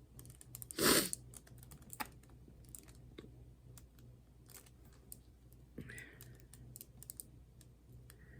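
Scattered light clicks and taps, with a brief louder rustle about a second in, over a faint steady low hum.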